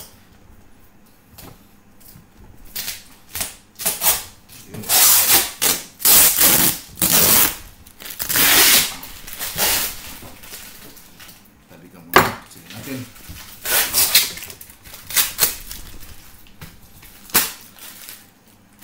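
A taped cardboard shipping box being opened: packing tape and cardboard ripped in a series of short tearing strips, with a sharp knock about twelve seconds in.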